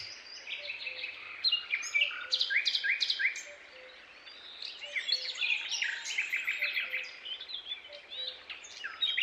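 Birdsong: several small birds chirping and trilling, in quick overlapping runs of short repeated notes.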